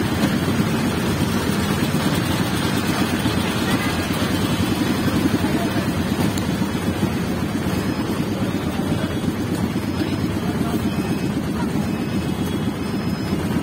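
A small vehicle's engine running steadily, heard from on board, with a low, rapid rumble and road noise.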